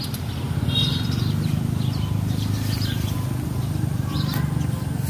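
Small birds chirping a few times, short high calls, over a steady low rumble.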